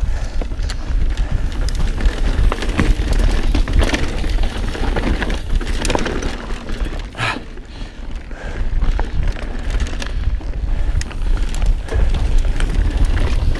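Mountain bike riding fast down a dirt trail: steady wind rumble on the camera microphone, with tyre noise and frequent clattering and rattling as the bike goes over rough ground.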